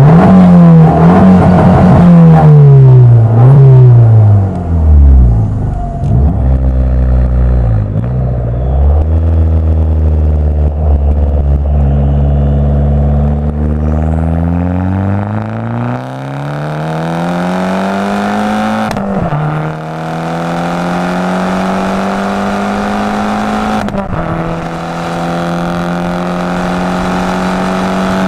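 Abarth 500 esseesse's turbocharged 1.4-litre four-cylinder with a Garrett 1446 turbo and Officine Caroleo exhaust, heard from on board. It is revved up and down several times, then runs steadily before accelerating. The pitch climbs and drops sharply at two gear changes, a few seconds apart.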